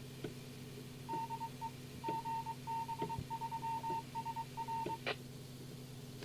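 A single beeping tone, keyed on and off in short irregular beeps for about four seconds, received on a scanning radio over a steady low hum, and ending in a sharp click.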